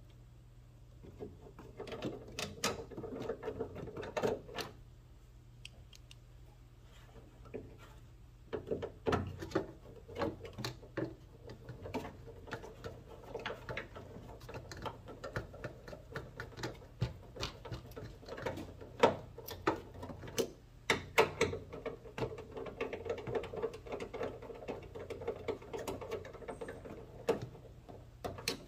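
Hand screwdriver driving small screws back into a sensor mount, a run of quick clicks and scraping. It starts about a second in, pauses briefly, then carries on with little break.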